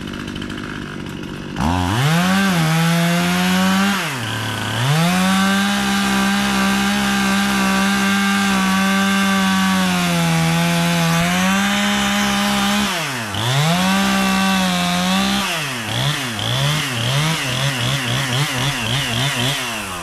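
Chainsaw running at full throttle as it cuts into a black oak trunk, with a short idle before it revs up. The note drops off briefly twice, then the throttle is blipped up and down in quick bursts before it falls back near the end.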